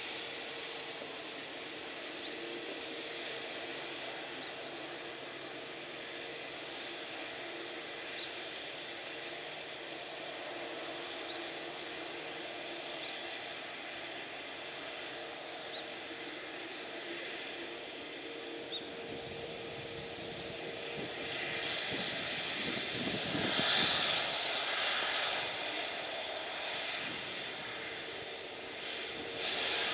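Boeing 787 airliner's jet engines running at low power with a steady hum and a held tone. They then spool up: from about two-thirds in the sound swells into a louder rushing whoosh, and it rises again with a climbing whine near the end, the thrust build-up for takeoff.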